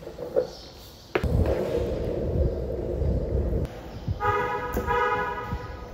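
Skateboard wheels rolling on a concrete parking-garage floor, a steady low rumble that starts suddenly about a second in. Near the end a car horn sounds twice, two steady honks with a short break between them.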